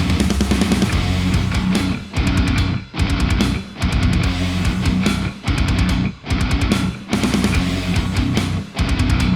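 Loud heavy metal music with distorted electric guitar and a driving beat, broken by short rhythmic stops.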